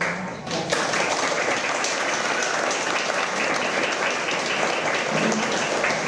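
A roomful of seated people applauding, many hands clapping together. The applause starts suddenly, swells about a second in, holds steady and tails off near the end.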